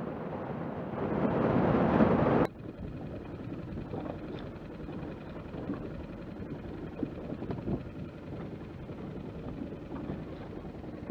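Rush of wind and water from a rigid inflatable boat running fast under outboard power, growing louder and then cutting off abruptly about two and a half seconds in. After that, a quieter wind-and-water haze with faint scattered knocks as the boat drifts with the engine off.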